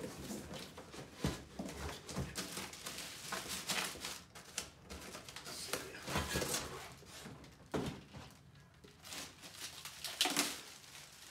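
Handling noises: irregular rustling with scattered clicks and knocks as an aluminium wheel rim and its packaging are moved about and inspected. A few sharper knocks stand out, about a second in and again near the end.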